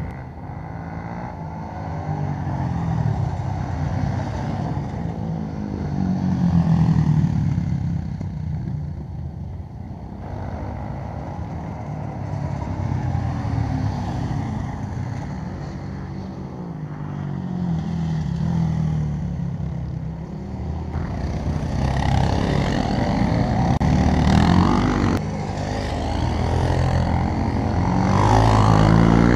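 Sport quad bike engines revving up and down as the quads accelerate along the straights and slow for the corners. The pitch rises and falls in waves every few seconds and is loudest in the last third.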